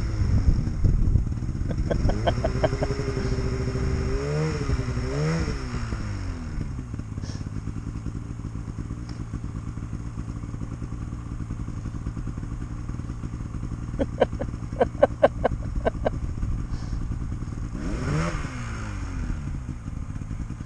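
Snowmobile two-stroke engine idling steadily, revved up and back down a few times about two to six seconds in and once more near the end. A quick run of sharp clicks about fourteen seconds in.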